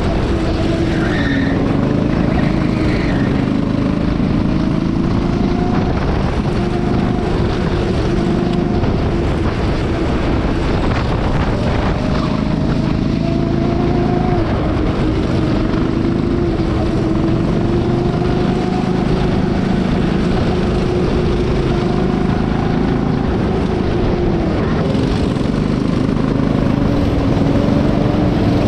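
Honda-engined rental go-kart heard from onboard at racing speed. The engine note climbs slowly along each straight and drops sharply several times as the driver lifts or brakes for corners.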